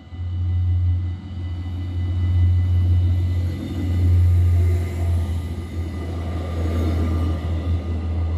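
Passenger train passing over an automatic half-barrier level crossing, its rumble and wheel noise rising to a peak about four seconds in and then easing off. The crossing's warning bell rings steadily throughout.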